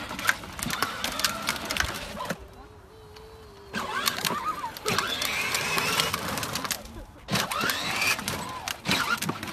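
Battery-powered ride-on toy jeep driving over pavement, its plastic wheels and body clattering, with a child's voice now and then.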